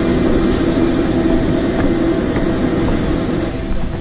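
Jet airliner noise on the apron: a steady, loud hum with a thin high whine. Near the end it gives way to a duller, quieter cabin hum.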